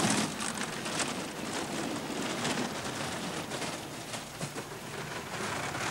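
Two-man bobsleigh running down the ice track: a steady rushing hiss of the runners on the ice, with faint ticks.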